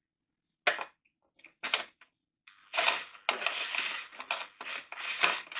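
Clicks and scraping of a bolt-on cover and its screws being handled and worked into place by hand: two separate clicks, then about three seconds of dense rattling and scraping.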